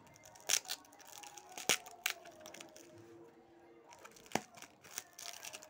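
Plastic packaging being snipped with scissors and pulled open by hand, crinkling, with a handful of sharp crackles.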